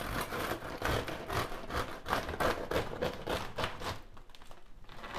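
Bread knife sawing back and forth through the crisp, hard-baked crust of a walnut sourdough loaf on a wooden cutting board: a rapid crackling scrape with each stroke.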